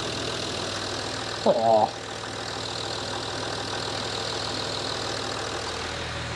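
Rebuilt Range Rover Sport engine idling steadily under an open bonnet, running smoothly, which the owner says sounds sweet.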